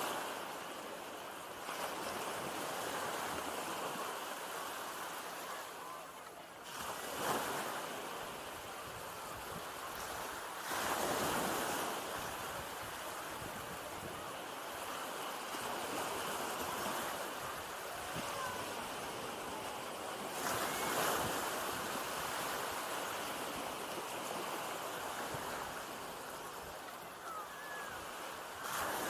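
Small North Sea waves breaking and washing up the sand at the shoreline: a steady surf wash that swells louder several times as individual waves break.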